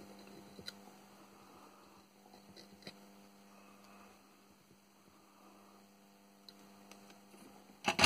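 Faint room tone: a steady electrical hum with a few soft ticks.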